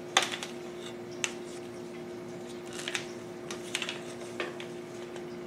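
Plastic accordion side panels of a window air conditioner clicking and rattling as they are handled and unfolded, in several short clusters, the sharpest click about a quarter second in.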